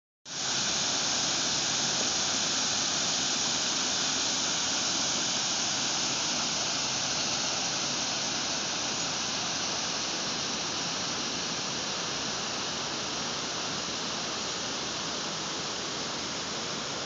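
Water pouring over a low dam spillway and rushing through the rocky rapids below it: a steady, even rushing hiss that grows slightly fainter in the later part.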